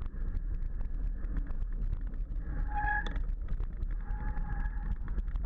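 Mountain bike rattling down a rocky dirt trail, with tyres on stones, clicks and clatter over a steady low rumble of wind and vibration on the mounted camera. A brief high squeal, typical of the bike's brakes as it slows into a switchback, sounds twice: about halfway through and again near the end.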